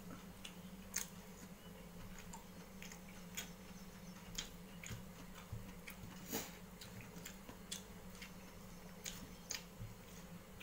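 Faint eating sounds of a meal taken by hand from a steel plate: irregular soft clicks and smacks of chewing and of fingers working rice against the plate, over a steady low hum.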